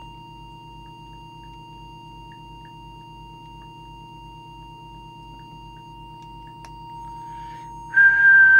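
A steady test tone of about 1 kHz over a low hum, from the bench set-up used to align the CB transmitter's deviation. About eight seconds in, a louder, higher whistle with a hiss around it cuts in.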